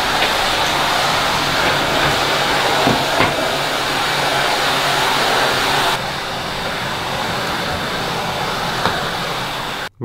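Numatic Hetty cylinder vacuum cleaner running steadily on its high power setting, its floor tool pushed over a hard floor. About six seconds in, the sound becomes a little quieter and less hissy, and it cuts off suddenly just before the end.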